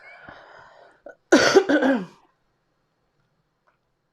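A woman coughs once, loud and voiced, about a second in, after a breathy exhale, just after a drink of sparkling water.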